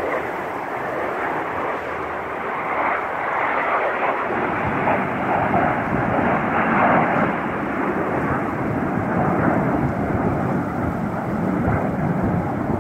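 Jet engine noise from a formation of military jets flying past overhead, a dense rumbling roar that grows deeper and louder about four seconds in and holds there.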